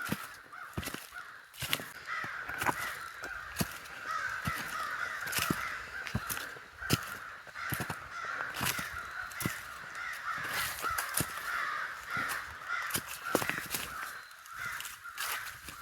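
Many crows cawing at once in a continuous, overlapping racket, with short sharp clicks and snaps scattered throughout.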